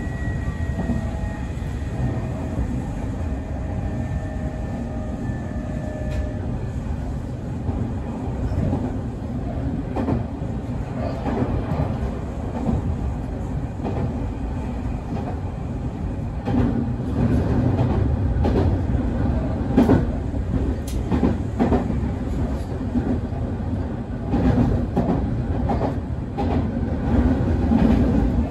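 Semboku 9300 series electric train running, a steady rumble with the traction motors' whine falling slightly in pitch over the first few seconds. In the second half it grows louder, with sharp wheel clicks over rail joints.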